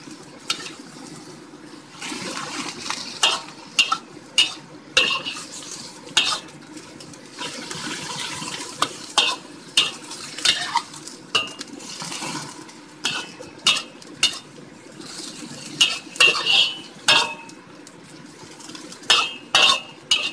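Spatula knocking and scraping against a wok, in irregular clusters, as spinach and onion leeks are stir-fried. Sizzling from the pan swells in between.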